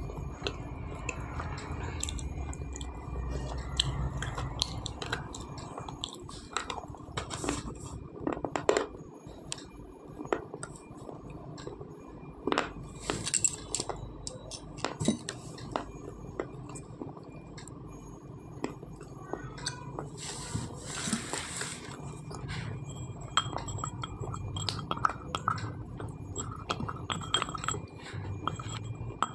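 Slate pencil being bitten and chewed: sharp crisp snaps and crunches at irregular intervals, some louder cracks standing out among softer chewing.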